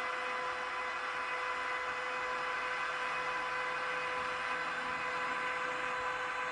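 Sound decoder of a Piko model DB class 101 electric locomotive playing its running sound through a small loudspeaker: a steady hiss of ventilation blowers with a steady electric whine.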